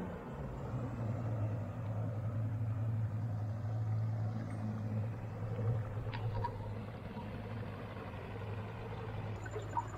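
Boat's outboard motor running slowly at low revs, a steady low hum that swells a little mid-way and eases off toward the end.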